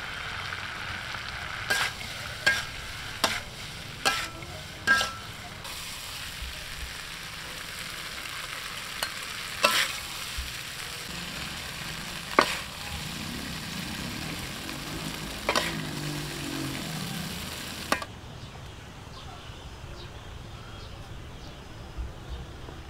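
Chicken eggs and green onion sizzling in a metal wok as they are stir-fried and scooped out. A metal utensil clinks sharply against the wok several times. The sizzling stops abruptly about 18 seconds in, leaving a quieter background.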